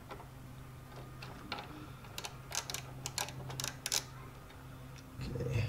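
Ratchet wrench with a 5 mm Allen bit clicking in quick, uneven runs as it works a brake-line bracket bolt loose, over a steady low hum.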